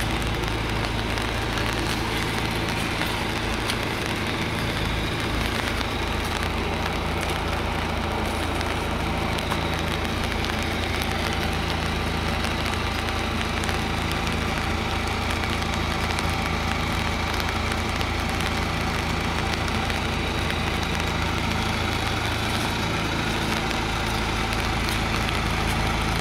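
An engine idling steadily, with an even crackling hiss over it.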